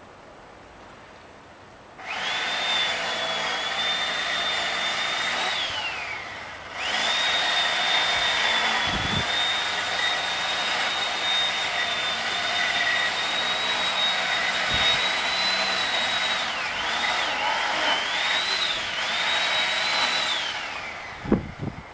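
A small high-speed motor's loud whine starts suddenly about two seconds in, winds down and stops briefly, then starts again. It runs steadily with a few wavers in pitch near the end, then winds down to a stop.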